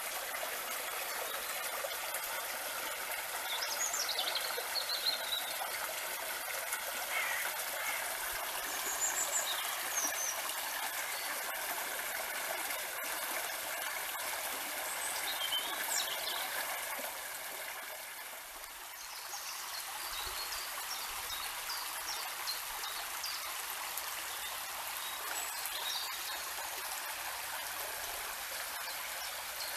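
Shallow stream running over stones, a steady rush of water that dips briefly about two-thirds of the way in. Short high bird chirps come through now and then.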